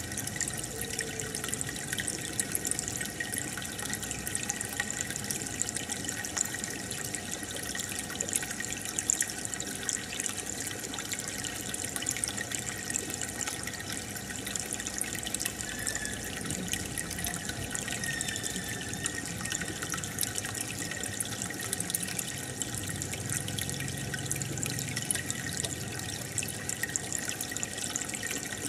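Aquarium water trickling and bubbling steadily, with a constant patter of tiny splashes and pops, as from a filter outflow or air bubbles breaking at the surface.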